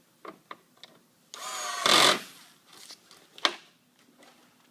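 A few small clicks of parts being handled, then a power screwdriver runs for about a second with a wavering whir, driving a screw back into the tray assembly, followed by a sharp click.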